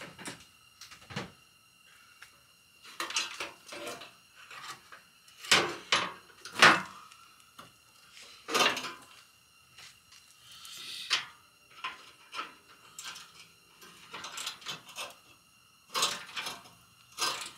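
Irregular clunks, clicks and scrapes of hand work on a car's front fender while it is being removed, with the loudest knocks about five to seven seconds in.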